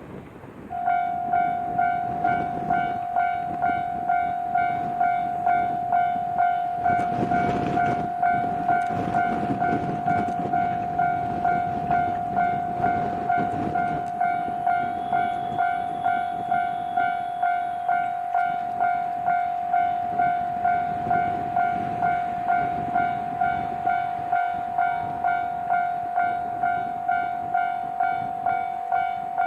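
Japanese level-crossing alarm ringing, a steady electronic ding repeating about one and a half times a second, starting about a second in. A JR Hokkaido H100 DECMO diesel-electric railcar rumbles over the crossing, loudest about a quarter to halfway through.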